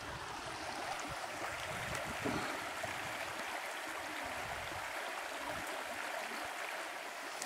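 Steady rushing of a river flowing along the bank, with faint low knocks beneath it.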